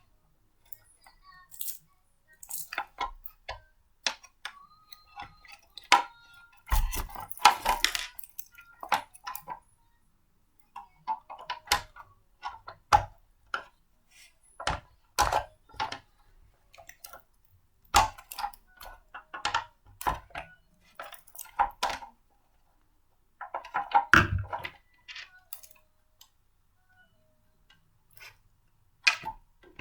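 Blender parts being handled and fitted together: a string of irregular clicks, knocks and clatters with short pauses between them, loudest in clusters about seven seconds and twenty-four seconds in.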